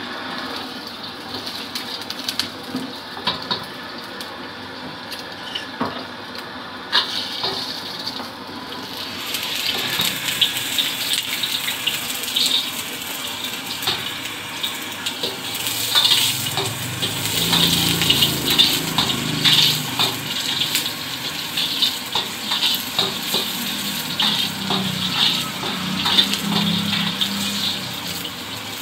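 Egg frying in hot oil in a steel wok: steady sizzling, with a metal spatula scraping and tapping against the wok. The sizzling grows brighter and louder about nine seconds in.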